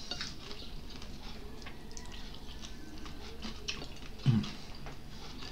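Close-up eating sounds: small, scattered clicks and smacks of chewing, with a short low hum about four seconds in.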